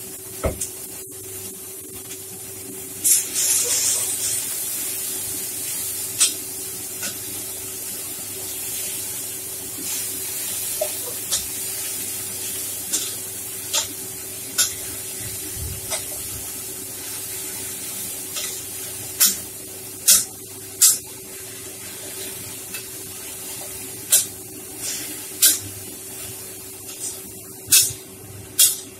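Shredded cabbage and carrot sizzling in a large frying pan over a gas burner, with a metal spatula clicking and scraping against the pan as the vegetables are stir-fried. A louder burst of hissing about three seconds in, and the spatula clicks come more often in the second half.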